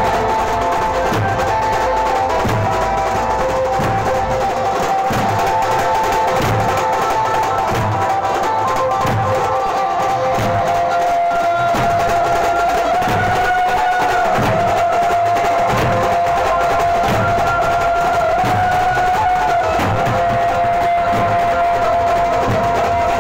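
Maharashtrian banjo party band playing through horn loudspeakers on a truck: long held, slightly bending melody notes over a steady, regular drum beat.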